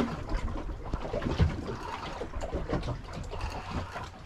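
Wind buffeting the microphone and water slapping against the hull of a small boat at sea, with scattered light knocks.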